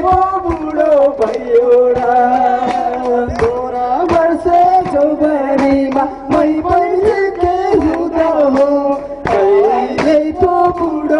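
Nepali dance song played loud over a PA system: a man singing a bending melody over a steady drum beat.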